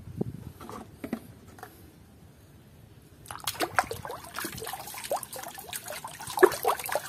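A hand swishing plastic toy animals around in a basin of water, splashing and sloshing, starting about three seconds in. A few faint knocks come before it, as the toys are handled.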